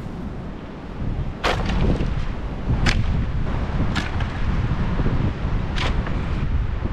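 Four sharp knocks, irregularly spaced about a second apart, over a steady low rumble.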